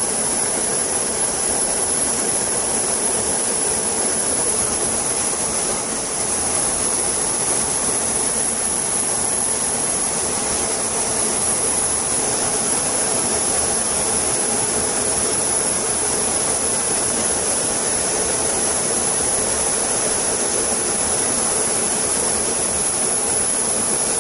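Steady jet engine and airflow rush heard from inside a jet's cockpit in flight, unchanging throughout.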